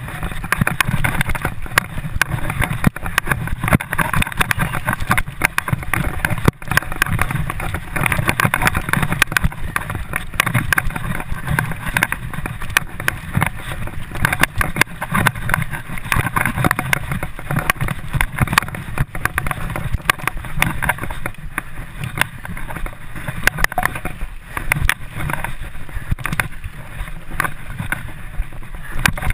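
Continuous rumble and rattle of a mountain bike ridden fast over a dirt forest trail, with many small knocks and jolts from roots and bumps, and some wind rushing over the microphone.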